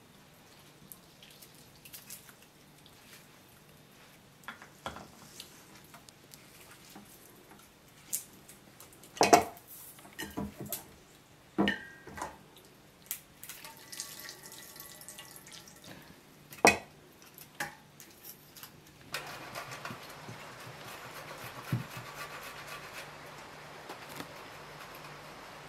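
Food-preparation handling sounds: scattered light clicks, then a few sharper knocks of a knife, hands and dishes about 9 to 17 seconds in. From about 19 seconds a steady soft hiss runs on.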